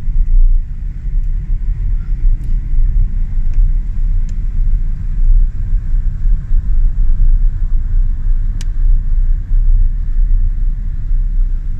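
Car driving along at road speed, heard from inside the cabin: a steady, heavy low rumble of road and wind noise that rises and falls in loudness.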